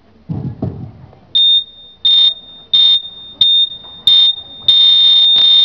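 High-pitched electronic buzzer beeping: about six short beeps roughly two-thirds of a second apart, then a long held tone that runs past the end.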